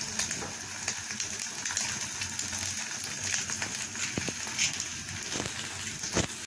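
Egg frying in hot oil inside a slice of bread in a nonstick pan: a steady sizzle full of small crackles, with a few louder pops in the second half.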